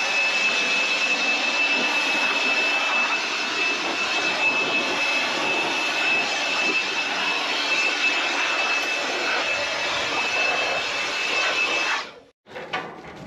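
Handheld leaf blower running steadily, blasting dust out of a round hay baler's workings to keep them from heating up and catching fire. A steady high whine sits over the rush of air, and the blower cuts off suddenly about twelve seconds in.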